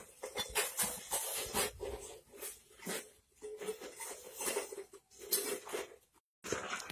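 Irregular scraping and clinking as a long iron hook drags glowing white charcoal (binchotan) out of a brick kiln's mouth: a run of short knocks and scrapes with brief pauses between strokes.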